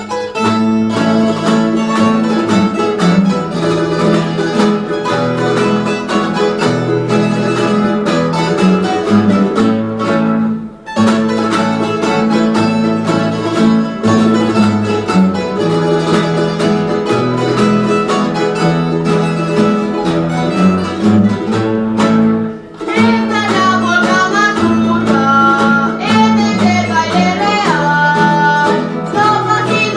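Folk string ensemble of guitars and other plucked strings playing a polka-mazurka, breaking off briefly twice. Voices come in singing a little past two-thirds of the way through.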